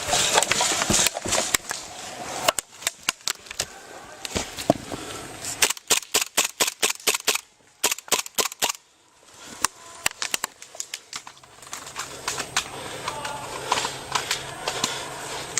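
Airsoft guns firing: scattered sharp snaps and quick strings of shots in the middle of the stretch, with a short lull after them.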